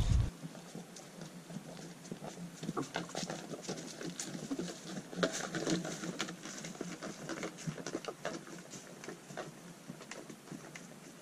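Footsteps crunching through dry brush and leaves, with twigs cracking, as a person walks by carrying a canoe overhead: a quiet, irregular scatter of small clicks and rustles.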